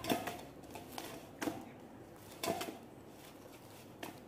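Soft, oiled maida dough being kneaded by hand in a stainless steel bowl: a few soft thuds about a second apart as the dough is pressed and turned against the bowl.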